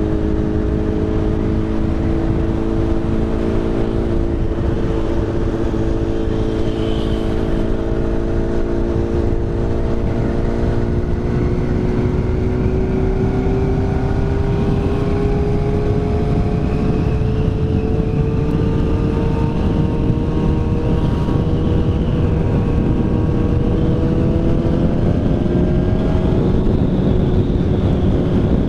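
Honda CBR600RR's inline-four engine running at steady cruising revs, its note rising slowly through the second half as the bike gathers speed, under a heavy rush of wind.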